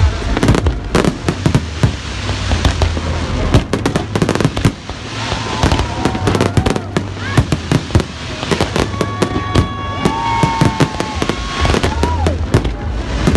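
Fireworks display: a dense, irregular barrage of sharp bangs and crackles over a low rumble, with a few whistling tones, one held for a couple of seconds past the middle.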